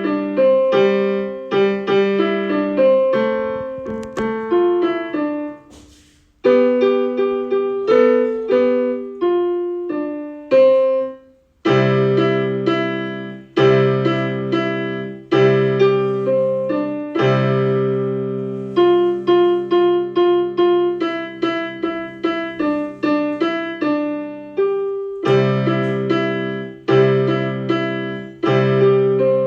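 A Christmas song played on piano, a single-note melody that stops briefly twice in the first half, after which low left-hand notes join under the tune for the rest of the piece.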